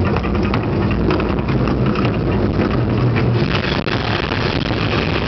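Artificial volcano show erupting: a dense, steady rumble from the flame bursts and the show's sound effects, with a crackle running through it.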